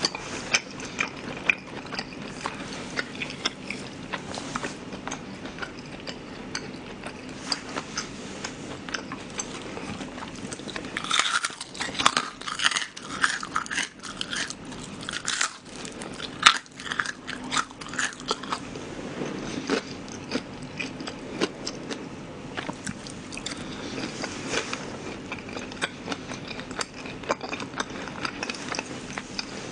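Close-up chewing and biting of glutinous-rice-battered shrimp in sweet-and-sour sauce: wet mouth sounds with soft crunches, the batter less crisp than usual. There is a denser, louder run of crunching bites about eleven to thirteen seconds in.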